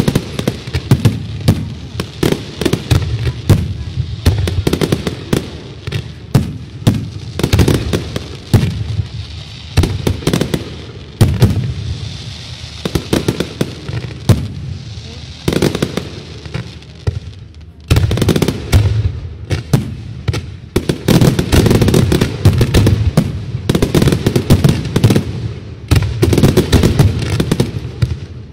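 Fireworks display: a rapid, unbroken stream of bangs from aerial shells bursting and launching, many per second, with a hissing crackle between them in the middle. The barrage grows denser and louder about two-thirds of the way through.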